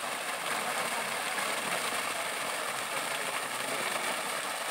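Water gushing steadily from a newly installed borewell's discharge pipe, pushed up by a 10 hp submersible pump, and splashing onto muddy ground.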